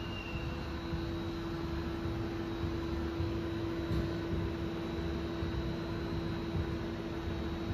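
Haas VF-2SS CNC vertical machining center running under power: a steady hum with one constant mid-pitched tone over a low rumble.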